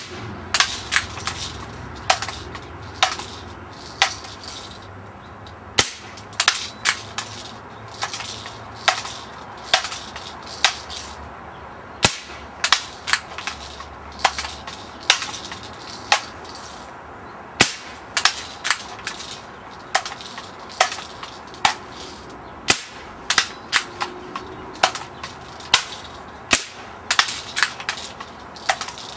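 Camera shutter clicking again and again, about two clicks a second at uneven spacing, often in quick pairs or threes.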